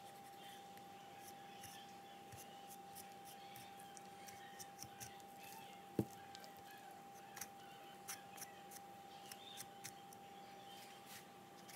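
Knife work on a raw chicken carcass on a cutting board: faint scattered clicks and snips as the blade cuts through meat and joints, with one sharp thump about halfway through. A faint steady high hum sits underneath.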